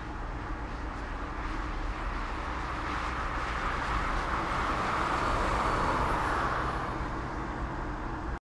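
Road traffic noise: a steady rumble of tyres and engines that swells in the middle, then cuts off abruptly near the end.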